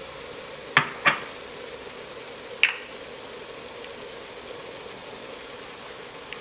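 Bacon, chorizo and chopped vegetables sizzling steadily in a pot, with two sharp taps close together about a second in and a third about a second and a half later.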